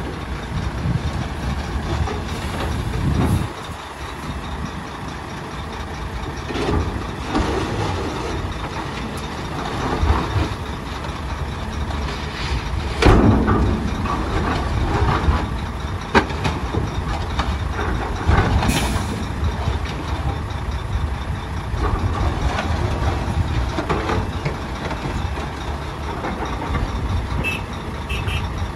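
Heavy diesel engines of a FAW tipper truck and a Shantui SE340 excavator running steadily, with a few louder scrapes and knocks as the excavator bucket scrapes rain-wet soil stuck in the raised tipper body. The loudest scrape comes about halfway through.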